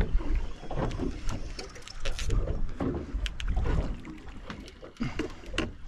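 Small boat on open water: a constant low rumble of wind and water against the hull, with scattered sharp clicks and knocks.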